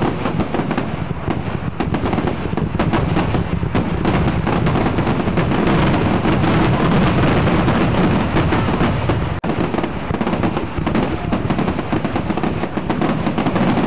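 Aerial fireworks shells bursting overhead in a rapid, continuous barrage of bangs and crackling. There is a brief dropout about nine seconds in.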